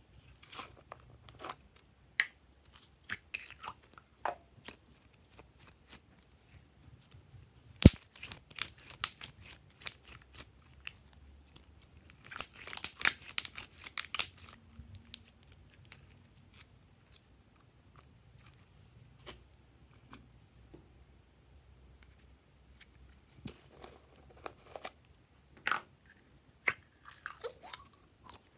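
Hands squeezing and pressing slime and clay: sticky, wet crackles, pops and clicks in scattered bursts. A dense run of crackling comes about twelve seconds in, and a single sharp click at about eight seconds.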